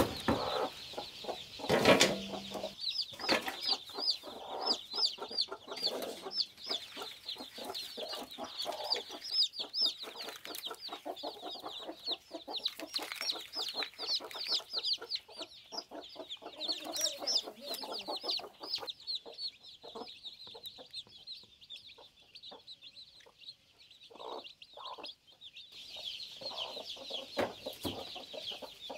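Newly hatched chicks peeping: a rapid run of short, high, falling cheeps, with lower clucking from a hen. There is a sharp thump about two seconds in.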